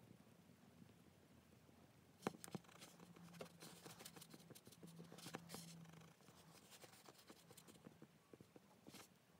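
Near silence with faint taps and rubbing from hands working a lump of soft clay on a work board; the sharpest tap comes about two seconds in. A faint low hum sits under the middle part.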